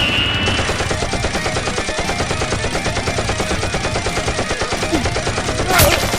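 Rapid automatic gunfire, a sustained run of shots, with one louder bang near the end. It is the machine-gun sound effect laid over a staged Nerf blaster battle, not the blasters' own sound.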